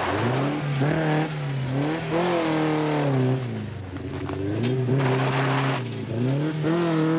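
Vauxhall Chevette rally car's 2.3-litre 16-valve four-cylinder engine revving at full effort on a rally stage, the revs climbing and falling, dropping sharply three times and climbing again.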